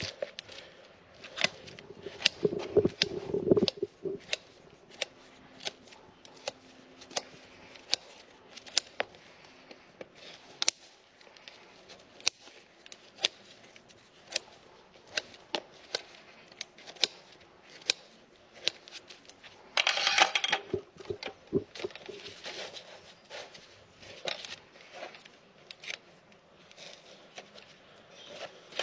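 Hoof nippers cutting a Shire horse's hoof wall during a trim: a long run of sharp snips and cracks, roughly one a second. A brief low rumble comes a few seconds in, and a short scraping rush about two-thirds through.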